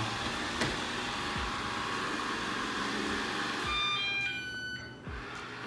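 Ecovacs Deebot N79W robot vacuum running with a steady whirring noise. About four seconds in it plays a short jingle of electronic beeps at different pitches and its suction noise drops away, as it is switched to return to its charging base.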